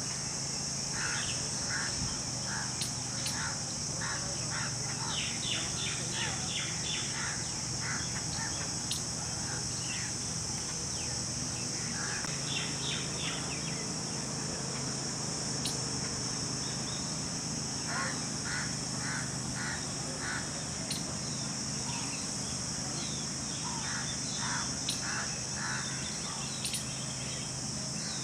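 Jungle babblers calling in runs of several quick, harsh notes, bout after bout, over a steady high-pitched insect drone.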